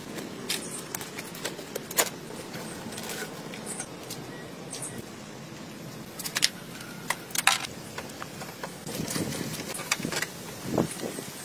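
Hand tools and metal parts clinking and rattling while an engine bay is being taken apart: scattered sharp clicks and knocks, the loudest about two seconds in and again around six to seven seconds, over a steady hiss.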